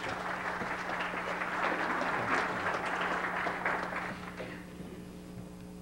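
Audience applauding, dying away about four and a half seconds in, over a steady low electrical hum.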